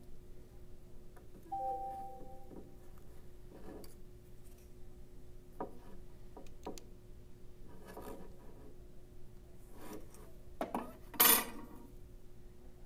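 Pencil and steel ruler worked against a wooden dragster body: a few faint scratchy pencil strokes, a short metallic ring from the ruler about a second and a half in, and a louder, brief scrape near the end as the ruler is shifted.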